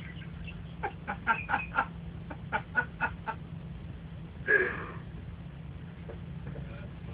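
Two quick runs of short, chicken-like clucks, then one louder squawk about four and a half seconds in.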